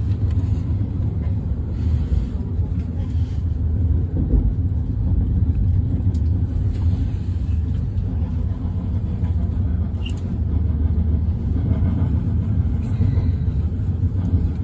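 Steady low rumble of a train running at speed, heard from inside the carriage.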